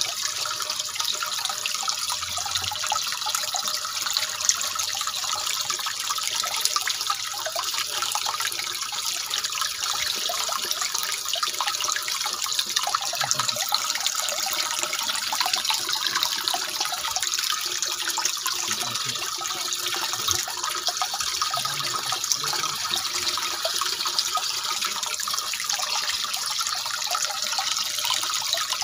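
Water running steadily into a pond tank, a continuous pouring sound that does not change.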